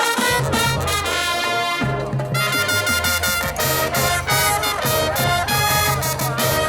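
Marching band playing a rock arrangement, brass section carrying the melody over low brass and percussion.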